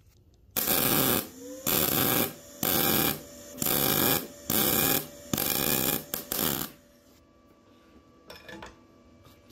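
MIG welder arc crackling in about six short bursts, each under a second with brief pauses, as the trigger is pulled and released again and again to tack-weld 1/16-inch thin-wall mild steel square tube. The arc stops a little before the end, leaving a faint steady hum.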